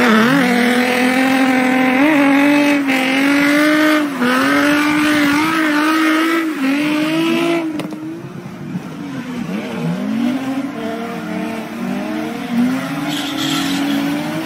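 Drift car engines held high in the revs, the pitch rising and falling with the throttle as the cars slide, with tyre squeal. After about eight seconds it turns a little quieter, with more than one engine note weaving.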